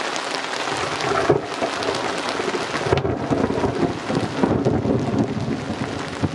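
Rain falling on a sailing yacht and its canvas cockpit cover, with thunder rumbling low from about a second in. The rain's hiss thins about three seconds in while the low rumble goes on.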